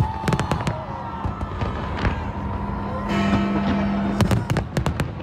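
New Year's Eve fireworks bursting with sharp bangs, scattered at first and then several in quick succession near the end, over loud music playing with the display.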